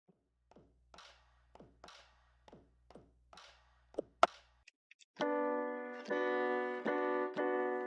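Music: a run of short electronic drum hits that fall in pitch, about two a second, with a loud hit near the middle. Then, from about five seconds in, sustained electric-piano chords restruck in a steady rhythm.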